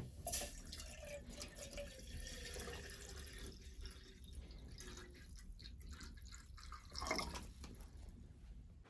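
Water dripping and splashing, with scattered small clicks and a louder swish about seven seconds in.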